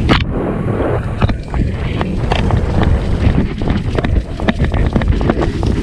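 Wind buffeting the microphone, a loud continuous rumble, with frequent irregular knocks and rattles as the rider moves over a rough dirt trail.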